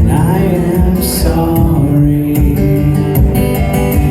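Solo acoustic guitar playing with a male voice singing, which holds the word "sorry" about halfway through.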